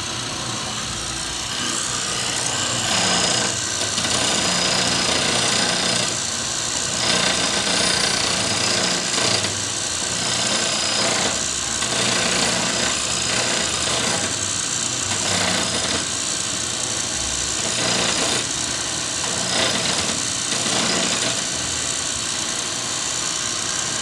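Homemade camshaft grinder running: its electric motor spins an abrasive wheel that grinds a steel camshaft lobe with a loud, harsh grinding hiss. The hiss swells and eases every second or two.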